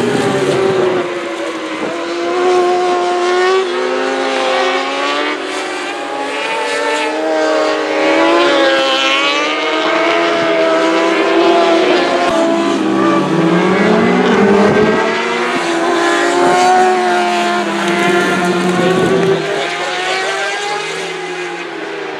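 Several racing superbike engines passing at speed, overlapping, their pitch rising and falling as the riders open and close the throttle and change gear.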